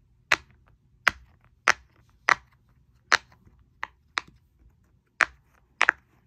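Silicone crab pop-it fidget toy being popped bubble by bubble on its loud side: about ten sharp, loud pops at an uneven pace.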